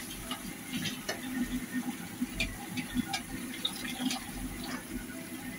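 Onion, garlic and ginger paste frying in soybean oil in a pan, bubbling with a steady sizzle and many small, irregular pops and crackles.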